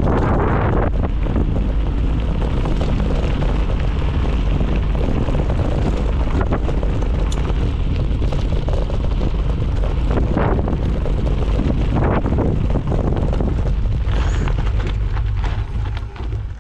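Wind rushing over the microphone during a mountain bike descent, with scattered knocks and rattles from the bike over rough trail. The noise dies down near the end.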